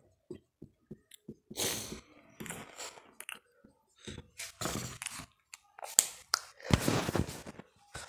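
Whiteboard marker scraping and squeaking across a whiteboard in short, scratchy strokes as a line of handwriting is written, with a louder rustle near the end.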